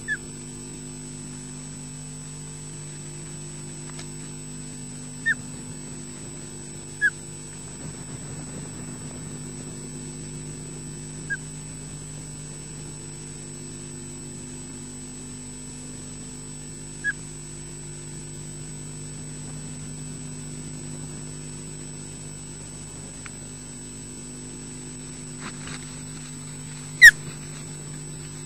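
Juvenile osprey giving short, high calls every few seconds over a steady electrical hum from the nest camera's microphone. Near the end, rustling as it flaps its wings on the nest, and one much louder sharp call.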